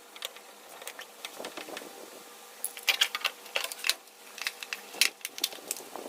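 Irregular clicks, taps and small knocks of parts being handled and taken apart during refrigerator repair, sparse at first and coming thicker and louder from about halfway through.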